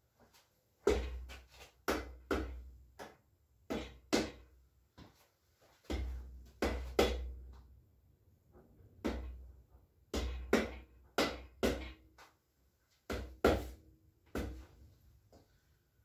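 Hammer strikes on a Honda K20A2 cylinder head to persuade it down onto the engine block: about two dozen sharp knocks in short, irregular runs with brief pauses between.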